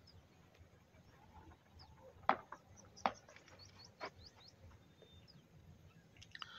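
Faint birds chirping, broken by three sharp clicks about two, three and four seconds in, the first the loudest.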